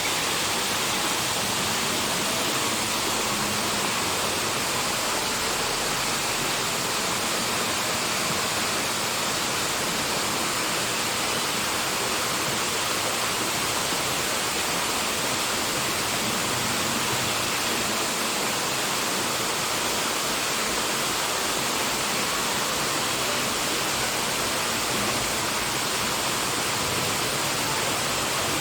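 Steady, even rushing noise that holds at one level throughout, with no distinct calls or knocks.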